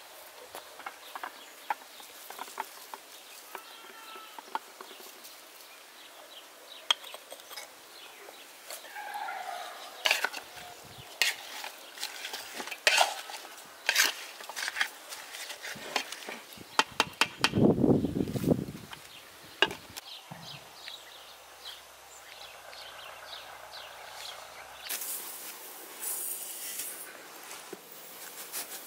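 Sharp clicks and knocks of a wooden spoon and hands working food into a metal pot, busiest in the middle, with a few short animal calls now and then. Near the end, a soft hiss of granulated sugar being poured into a glass.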